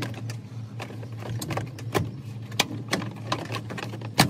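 Plastic cab pillar trim panel of a 2003 Chevrolet Silverado being pulled hard off its retaining clips, with a run of irregular sharp clicks and knocks from the panel and clips. The clips hold without breaking.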